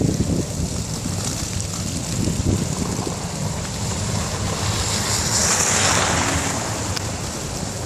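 Wind buffeting the microphone of a camera riding along on a bicycle, a steady low rumble. A rushing hiss swells and fades about five to six seconds in.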